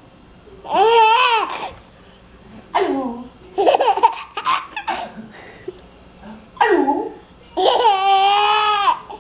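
A baby laughing in repeated high-pitched bursts, with a choppy run of short laughs in the middle and the longest, steadiest laugh near the end.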